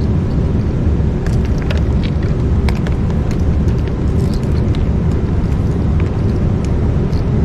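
A steady low rumble with scattered light clicks and rattles from test-meter leads being unwound and handled.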